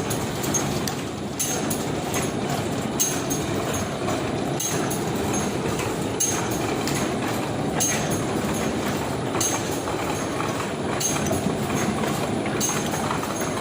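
Heidelberg Speedmaster four-colour sheet-fed offset press running at high speed: a steady, dense mechanical clatter, with a short hiss that recurs about every second and a half.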